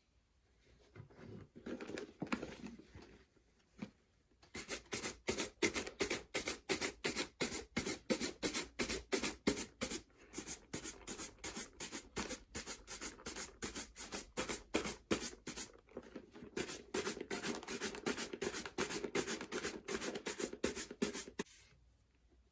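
A shoe brush buffing a cream-polished leather boot in rapid back-and-forth strokes, about three a second, with some softer rubbing before the brisk strokes begin.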